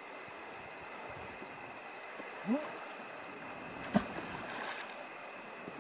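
Steady chorus of night insects, with several high tones held unbroken. About two and a half seconds in comes a short rising vocal sound, and about four seconds in a single sharp knock, the loudest thing, followed by a brief rustle.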